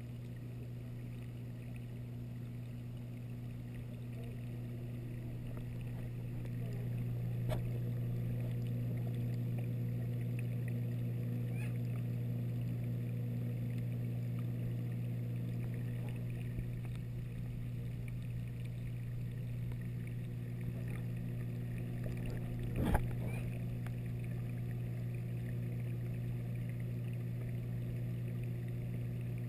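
Steady low hum of reef aquarium circulation pumps running, growing slightly louder about six seconds in. A few faint clicks, and one louder knock about 23 seconds in.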